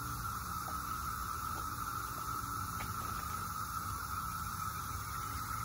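Steady background noise with a constant mid-pitched hum and a few faint clicks.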